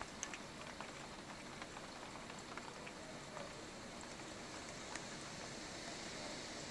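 Steady rain from Hurricane Irene falling, a faint even hiss with scattered drops ticking on a nearby surface.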